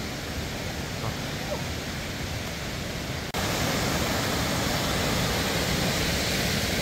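Steady rush of falling water from a waterfall, with no distinct events in it; it jumps suddenly louder a little over three seconds in.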